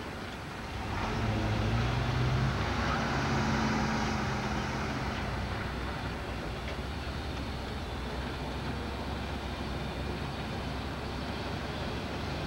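Car engine and road noise heard from inside the moving car: the engine picks up about a second in as the car speeds up, then settles into a steady drone of engine and tyres.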